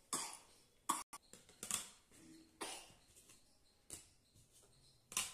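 Hard plastic stacking rings clicking and knocking as a toddler picks them up and puts them down, a handful of light, irregularly spaced clacks.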